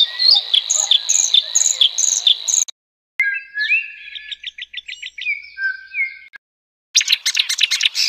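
Three birdsongs in quick succession. First, a bluethroat's song of sharp repeated notes over a steady high thin tone, which stops abruptly after about two and a half seconds. After a short gap comes another songbird's run of clear whistled notes, and after a second gap, near the end, a reed warbler's fast, harsh chattering song.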